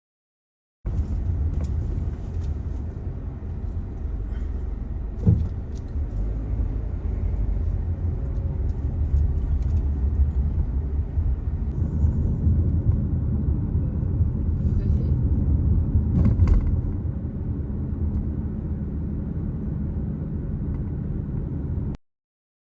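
Steady low rumble of a car on the road, with a brief knock about five seconds in.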